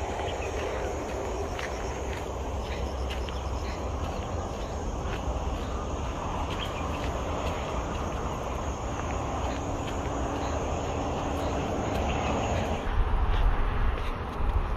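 Insects buzzing steadily in the trail-side vegetation, over a low rumble of wind and handling on the microphone. The buzz cuts off about thirteen seconds in, and the rumble grows louder.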